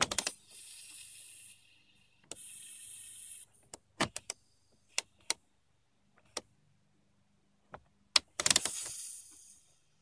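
A/C control switch in a 1995 GMC G2500 hissing in three bursts of about a second each, one near the start, one around two and a half seconds in and one near the end, with sharp clicks between them. The van's air conditioning has stopped working and the switch only does this now.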